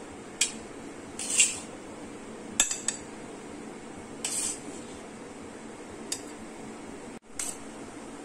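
A metal spoon clinking and scraping against a stainless steel plate and a glass cup as chopped mango is scooped and dropped in. There are several short, separate clinks and scrapes over a steady background hiss.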